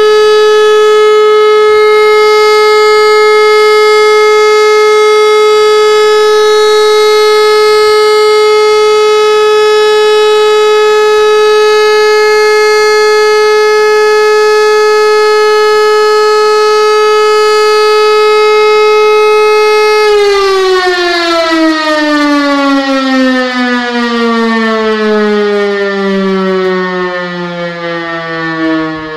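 Civil-defence siren sounding a steady continuous tone, the signal for all-clear. About two-thirds of the way through it switches off and winds down, its pitch falling steadily.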